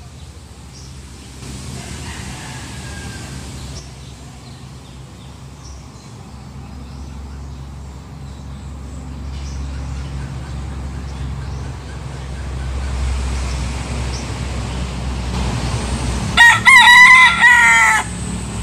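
A young rooster crowing once near the end, a single loud cock-a-doodle-doo lasting about a second and a half, over a low steady rumble of background noise.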